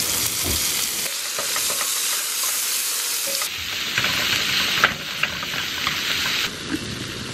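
Sliced sausage and onions sizzling hard in a hot skillet. A fork stirs them, scraping and clicking against the pan, with a few sharp clicks about four to five seconds in.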